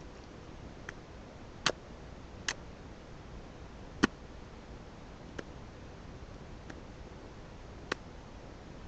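Finger flicking a cheek: about seven sharp, irregularly spaced clicks, the loudest about a second and a half in and again about four seconds in. It is an attempt to imitate water dripping, which she judges a failure.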